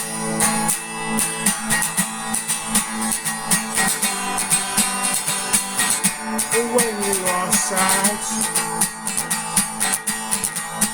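Guitar strummed in a steady, rapid rhythm: an instrumental passage of a song, with a few gliding notes about six seconds in.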